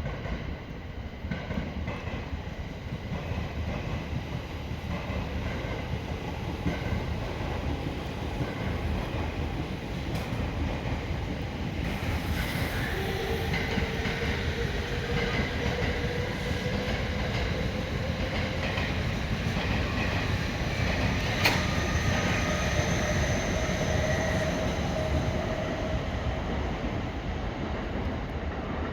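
A train running past on the rails, with a steady rumble and clatter. Thin squealing wheel tones rise out of it about halfway through and fade near the end, with one sharp click in the middle of them.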